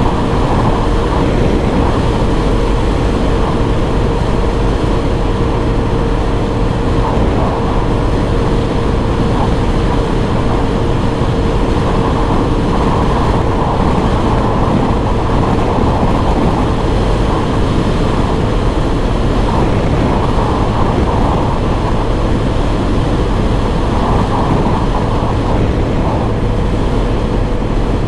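Suzuki Burgman 125 scooter cruising steadily at road speed: wind rushing over the microphone with the engine droning underneath and a steady hum.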